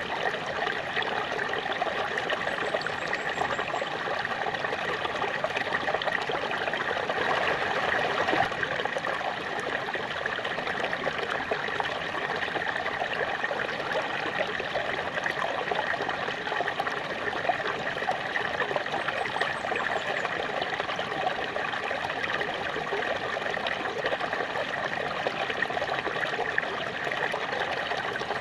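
Small waterfall splashing and trickling steadily, water falling onto water and rocks.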